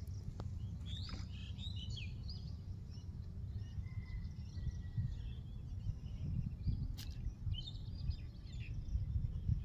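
Birds chirping on and off over a steady low rumble, with one sharp click about seven seconds in.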